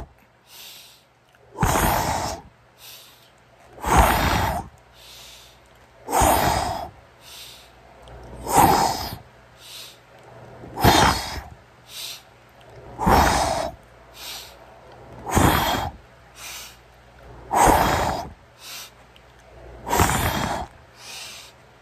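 A man breathing hard close to the microphone while doing push-ups: a strong breath out about every two seconds, one per rep, with a shorter, fainter breath in between each. Nine strong breaths in all.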